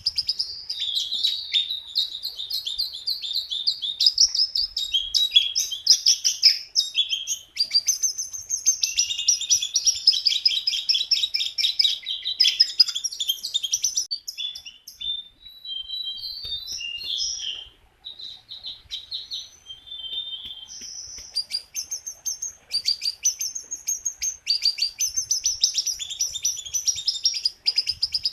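A jongkangan songbird singing in full voice: long runs of fast, high-pitched chattering notes, thinning to scattered short notes about halfway through before the full song picks up again.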